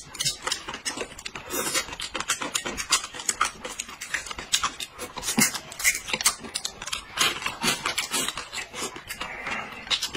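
People eating close to the microphone: irregular crisp crunching and chewing of food.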